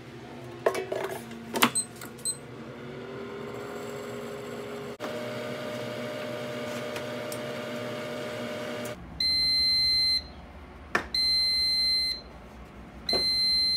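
Air fryer: a clatter and a few short button beeps, then its fan spins up with a rising whine and runs steadily. About nine seconds in the fan stops and the unit gives three loud electronic beeps, each about a second long.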